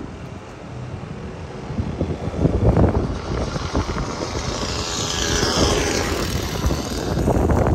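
Wind buffeting the microphone with an uneven low rumble, while a passing vehicle swells up about halfway through, its hiss falling in pitch as it goes by.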